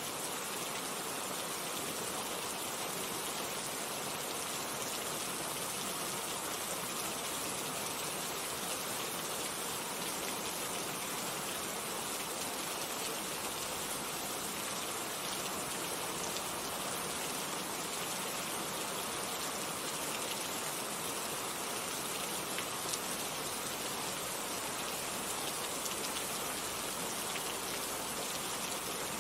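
Heavy rain falling steadily, a dense even hiss with scattered drops tapping on surfaces.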